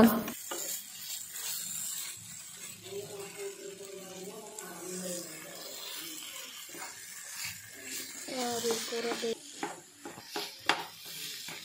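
Spatula scraping and clicking against a nonstick frying pan as a thick, soft mash of banana and grated coconut is stirred, with a few sharper scrapes in the last few seconds.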